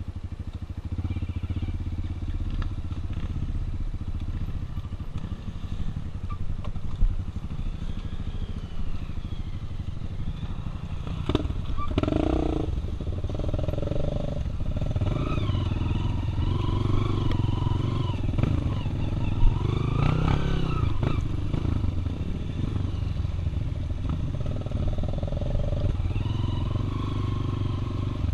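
Single-cylinder Honda dirt bike engine running on a trail, revving up and down through the middle, with a few sharp knocks.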